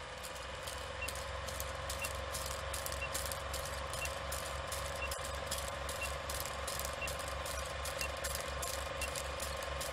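Old film-projector countdown sound effect: a steady whirring hum with a pulsing low rattle and many crackling clicks, and a short high beep once a second as the numbers count down. It cuts off suddenly near the end.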